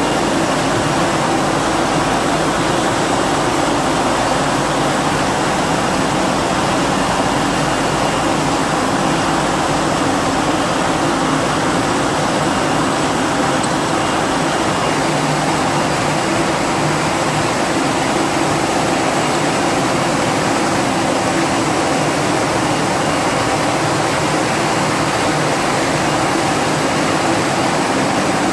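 Glass bottle frosting production line running: a steady, even machinery noise with a faint high whine throughout.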